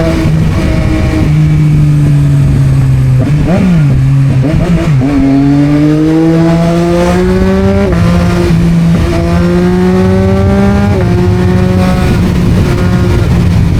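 Yamaha MT-09's three-cylinder engine through an Akrapovic exhaust, ridden in town: a steady note, a few quick throttle blips about four seconds in, then the revs climb twice, each climb ending in a sudden drop at a gear change, before it settles back to a steady run.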